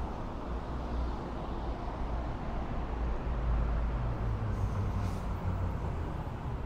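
Road traffic rumble, with a vehicle passing by and swelling to its loudest about halfway through.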